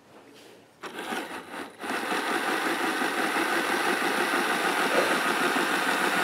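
Mantua 0-6-0 'Little Six' model locomotive's open-frame motor and worm gear whirring as it starts its test run after cleaning and lubrication. It stutters for about a second, then settles into a steady whir.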